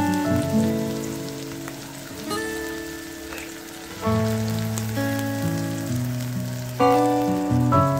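Background music with slow sustained notes over a steady sizzle of diced peppers and onions frying in a pan, with beaten egg poured in partway through.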